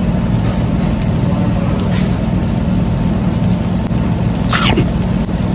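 Steady low mechanical hum of restaurant machinery, with a quick falling sweep about four and a half seconds in.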